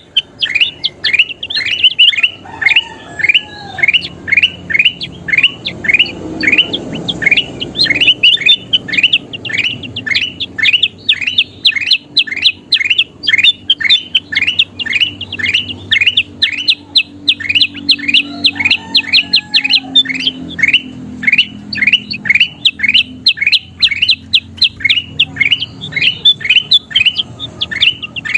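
Kutilang emas (golden bulbul) calling in a fast, even series of short notes, each sliding downward, about three a second without a break.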